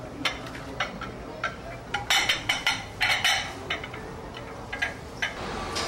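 Clicks and clinks of a plate and a wooden salad server against a large salad bowl, with a dense patch of crackling and clattering from about two seconds in as whole romaine leaves are tipped into the bowl.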